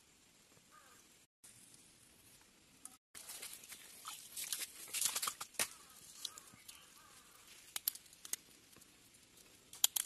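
Handling noises from hands working in wet mud and leaf litter: scattered crackles, rustles and small clicks, busiest in the middle, with a few sharp clicks near the end.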